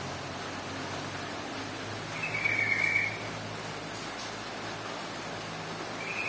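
Yellow-vented bulbul (trucukan) giving a short, bubbly, chattering call about two seconds in, with another call starting at the very end, over steady background hiss.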